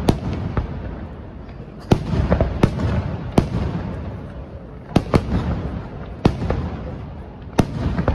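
Aerial firework shells bursting: about nine sharp bangs at irregular intervals, each trailing off into a low rolling rumble of echo.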